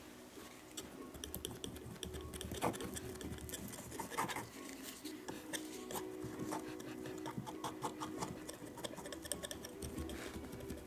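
Metal palette knife dabbing and scraping thick oil paint on a canvas panel: a run of short scratchy strokes and taps.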